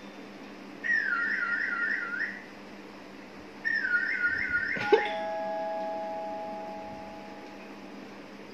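An electronic warbling trill sounds twice, each about a second and a half long. The second ends in a click and a two-note chime that rings on and fades out over about three seconds.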